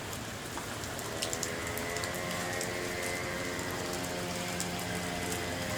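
Heavy rain falling, with the sharp taps of individual drops hitting surfaces. From about a second and a half in, a steady hum with several tones joins the rain.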